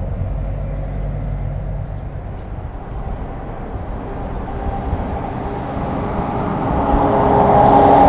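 Federal Signal Model 5B fire siren winding up over a low rumble. Its tone rises slightly in pitch and grows steadily louder over the last four seconds.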